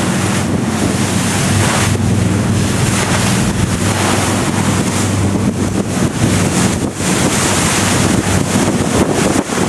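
Wind buffeting the microphone in irregular gusts on the open deck of a moving ferry, over a steady low hum from the ferry's engine that fades out about halfway through.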